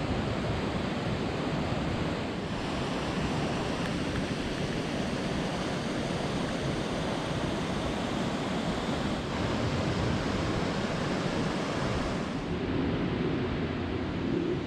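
A desert waterfall and rain-fed runoff in a normally dry wash, making a steady, even rush of falling and flowing water.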